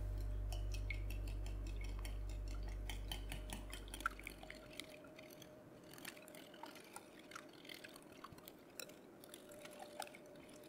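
Wire whisk beating eggs and milk in a bowl: quick, faint clicks of the wires against the bowl with liquid sloshing. A low steady hum fades out over the first four seconds or so.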